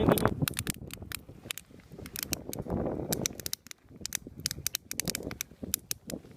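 Gusting wind rumbling on the microphone, with many irregular sharp clicks and crackles.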